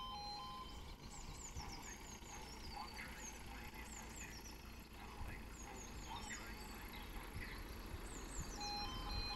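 Small birds chirping, with quick high descending notes repeated over a faint low rumble. The level crossing's two-tone warning alarm stops just after the start and comes back about a second before the end.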